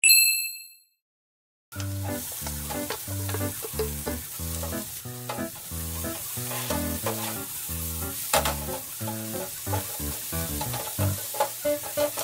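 A short bright chime, then about a second of silence. After that, diced onion sizzles in a non-stick frying pan while a wooden spatula stirs and scrapes it, under background music with a steady beat.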